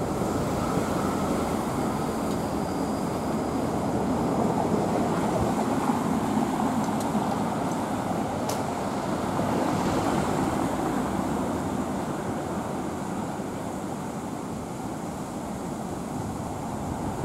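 Street traffic noise: a car passes close by and drives away down a steep hill, its tyre and engine noise swelling and fading over a steady background hum.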